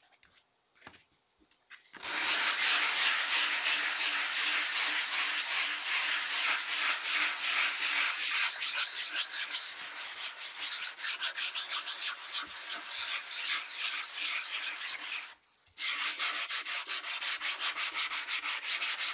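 A folded piece of sandpaper rubbed by hand over a dried, painted paper illustration page. Rapid back-and-forth sanding strokes start about two seconds in, stop briefly near the end, then resume.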